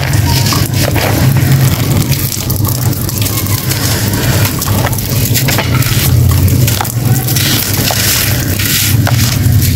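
Hands crushing clumps of compacted sand, a dense run of gritty crunches and crackles as the clumps break and the grains grind together. A steady low hum runs underneath.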